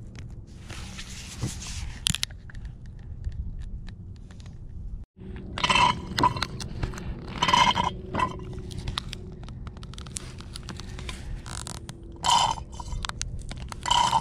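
A plastic bottle of Slime tire sealant being squeezed out through a hose into a tire valve stem: crinkling plastic and squelching sealant and air in several short bursts a second or two apart, as the bottle is emptied into the tire.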